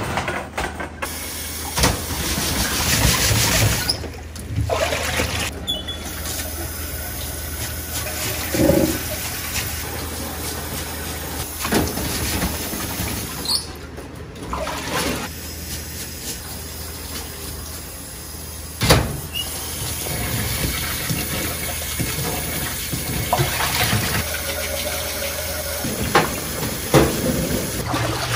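Tap water running into a stainless steel sink while rice is washed by hand in a metal pot, with a few sharp knocks, the loudest about two-thirds of the way through.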